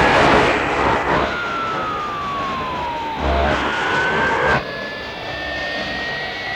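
Tecsun PL-606 portable shortwave radio tuned to 4640 kHz, giving rushing static with whistling tones that glide in pitch: one falls for about two seconds, a short one rises, then a long one rises slowly through the second half. The noise drops a little about two-thirds of the way in.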